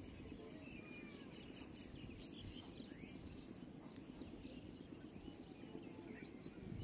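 Faint open-field ambience: scattered bird chirps and short calls over a low, steady rumble.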